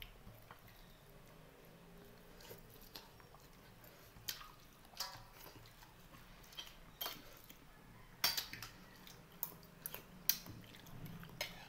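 Eating sounds from a meal eaten by hand: irregular short clicks and taps of fingers and utensils against a plate and pot, with soft chewing.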